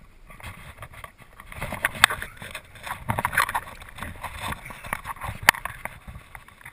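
River water splashing and sloshing close to the microphone as the camera dips at the surface, with two sharp knocks, one about two seconds in and one about five seconds in.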